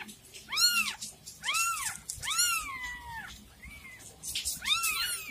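Newborn kittens mewing: about five high-pitched mews, each rising then falling in pitch, one near the middle drawn out longer.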